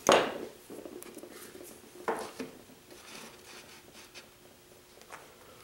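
A wooden canoe hull being handled and set down on a basswood board on a workbench: a sharp noise right at the start, then a couple of light wooden knocks about two seconds in and faint scraping, over a faint steady hum.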